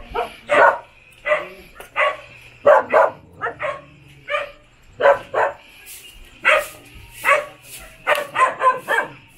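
A dog barking over and over, roughly two short barks a second at uneven spacing.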